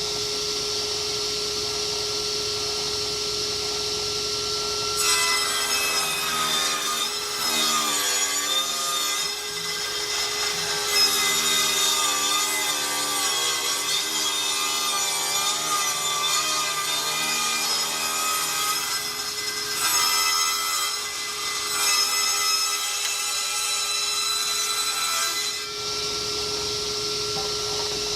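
Electric saw running steadily, then cutting along the edge of a rough-cut ash board from about five seconds in until near the end, when it drops back to running free.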